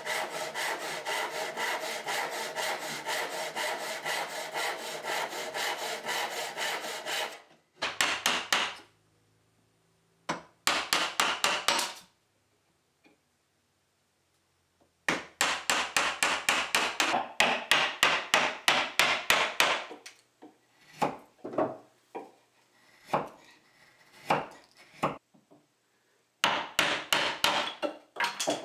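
Backsaw cutting a tenon in tulip poplar by hand: a long run of quick, even rasping strokes for about seven seconds. After that come short bursts of rapid hand-tool strokes and single knocks with pauses between, and a chisel working the tenon.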